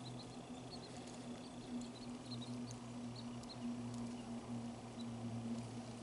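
Faint outdoor background: a low steady hum, with scattered short high chirps or squeaks.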